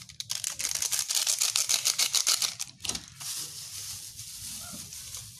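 Liquid seasoning poured from a plastic bottle onto raw fish and vegetables in a pot: a dense crackling patter for about three seconds, then a softer, steady hiss.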